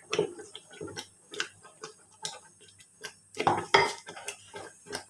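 Wooden saag masher (ghotna) knocking and scraping against a metal pot as thick mustard-greens saag, thickened with a wheat-flour slurry, is mashed over the heat. Irregular knocks come about two a second, a little louder a bit past three seconds in.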